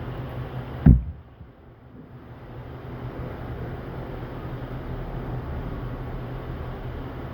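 A single sharp click of a phone's power button being pressed, about a second in, over a steady hum and hiss. The background drops away right after the click and builds back up over the next two seconds.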